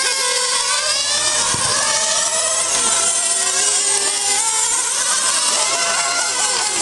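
Several nitro-engined radio-controlled model cars racing, their small engines screaming at high revs and rising and falling in pitch as the cars brake and accelerate through the corners.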